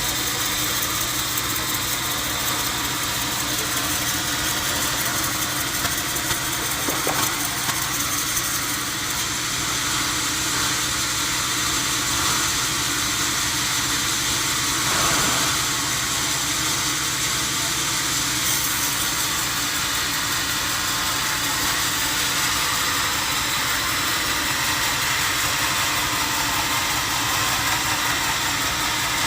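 Sawmill machinery running steadily: a constant, unchanging engine-like drone.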